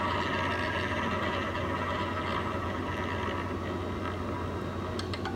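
Electronic roulette machine playing its wheel-spin sound: a steady rolling whir of the ball that slowly fades over a low electrical hum. Near the end a quick run of clicks begins as the ball drops toward the pockets.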